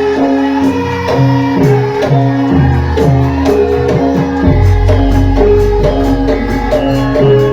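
Traditional Javanese lengger dance music: held steady instrumental tones over a steady beat, with a drum whose low strokes fall in pitch about twice a second.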